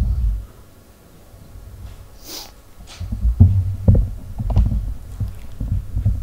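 Irregular low thumps and rumbling handling noise close to the microphone while a puppet is hung between poles by its clips, with a few sharper knocks. It dips for a couple of seconds, a short breathy hiss comes a little over two seconds in, and the thumps return more strongly from about three seconds.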